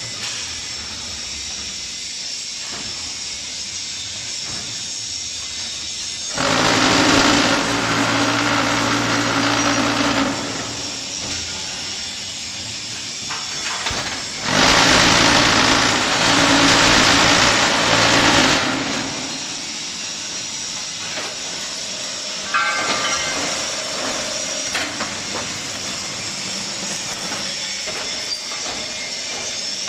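QTJ4-25D concrete block-making machine running through its moulding cycle. Twice, for about four seconds each, it turns loud with a steady low hum under hiss as the mould is vibrated to compact the concrete. Between these it runs more quietly, with a brief rattle a little over halfway through.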